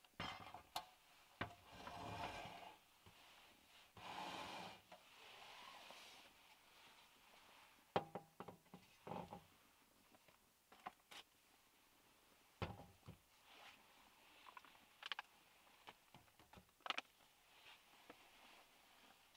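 Camping gear being set down one piece at a time on a wooden tabletop: a portable gas stove, a flask, a glass bottle and a box. Soft knocks and taps come every second or two, with a few longer stretches of sliding and handling noise in the first five seconds.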